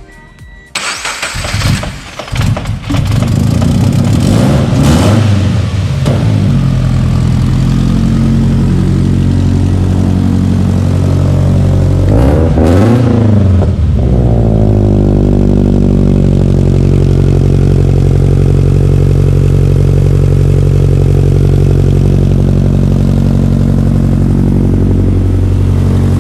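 Widebody FR-S's Subaru engine with an unequal-length header and HKS single-exit exhaust, cranked and catching about a second in, revved up and back down twice, then idling steadily with a deep rumble.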